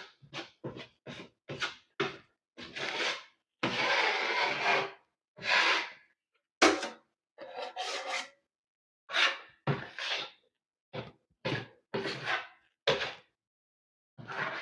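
Steel drywall knife scraping wet joint compound, a run of short strokes with one longer drawn-out stroke near the middle, as the mud is spread and the paper joint tape is pressed into it.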